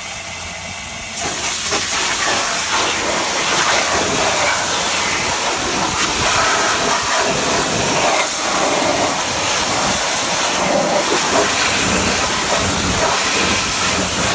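High-pressure car-wash wand blasting water into and against a bare Chevrolet 5.3 LS engine block, a loud steady hiss. It grows louder about a second in and stops suddenly near the end.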